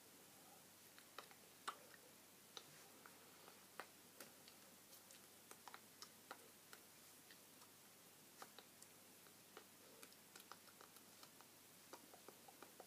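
Faint, irregular clicks and taps of hands and fingers meeting during sign language, a dozen or more scattered through near-silent room tone.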